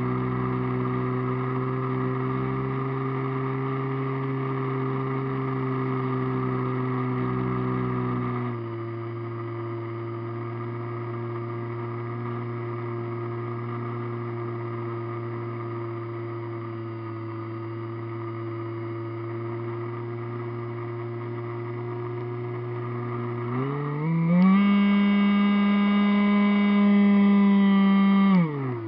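A radio-controlled model airplane's motor and propeller, heard from on board the plane, running at a steady pitch. The throttle eases back about a third of the way in. Near the end it opens up, rising to a louder, higher pitch, holds there briefly, then cuts back sharply.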